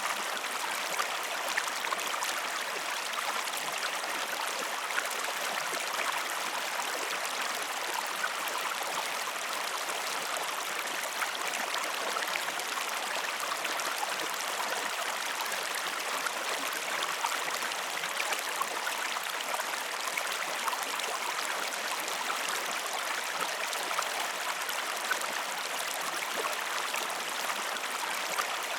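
Flowing river water: a steady, even rush with many small splashes and trickles.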